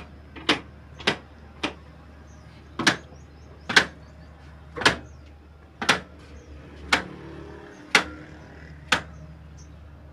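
Old single-cylinder horizontal diesel engine with a heavy flywheel, giving sharp single firing cracks at a slow beat: about two a second at first, then spacing out to about one a second. A low steady hum lies underneath.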